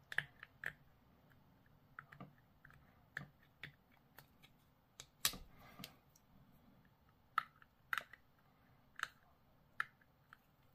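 Faint, irregular clicks and short scrapes of a thin metal hobby tool worked into a narrow gap on a plastic miniature, tidying it up.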